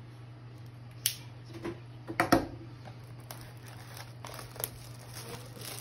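Plastic shrink-wrap being slit and torn off a cardboard trading-card box, with scattered crinkles, clicks and taps as the box is handled; the loudest cluster comes a little over two seconds in. A steady low hum lies underneath.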